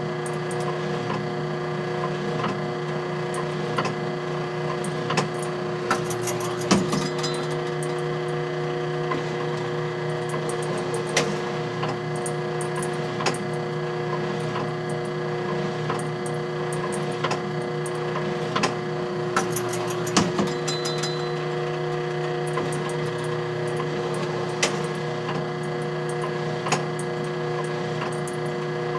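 Vintage black-and-white photobooth mechanism running: a steady motor hum with irregular mechanical clicks and clacks, and heavier clunks about seven seconds in and again about twenty seconds in.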